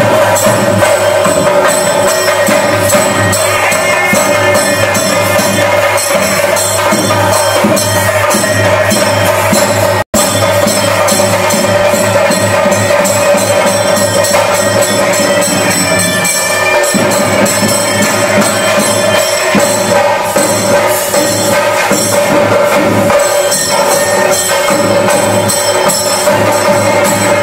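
Loud, fast temple drumming on chenda drums with clashing cymbals, the percussion of a theyyam ritual. It breaks off for an instant about ten seconds in.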